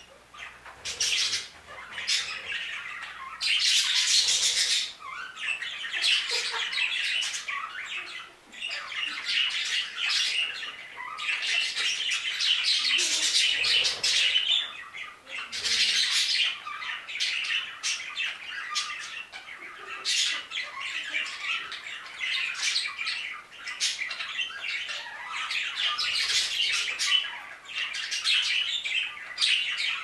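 A flock of budgerigars chattering, with many calls overlapping in a busy stream that swells and eases off every few seconds.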